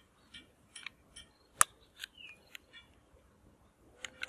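Plastic toy revolver clicking as its trigger is worked: a string of light, irregular clicks, with one sharp, louder click about one and a half seconds in. Near the end a short steady tone begins.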